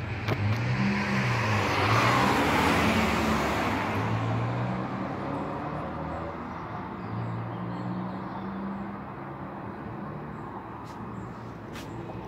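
A motor vehicle passes close by on the road. Its engine and tyre noise swell to a peak about two seconds in, then fade into steady traffic noise.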